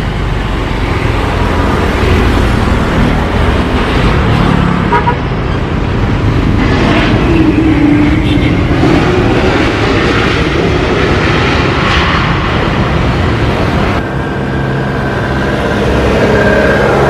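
Jet engine noise from an Airbus A321neo landing and rolling down the runway, loud and steady with a pitch that rises and falls around seven to eight seconds in. About fourteen seconds in the sound changes abruptly to the engines of another airliner on approach.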